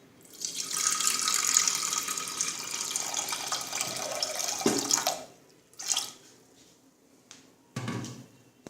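Water running or pouring into a container for about five seconds, then stopping, with a couple of short knocks after it.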